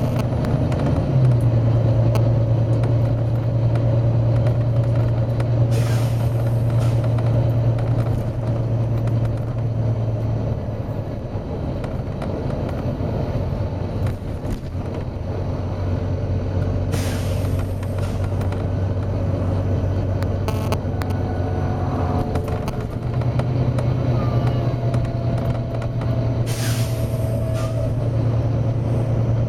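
Volvo B9TL bus's diesel engine running steadily, its pitch shifting a few times, while the compressed-air system lets out a short hiss three times, roughly every ten seconds.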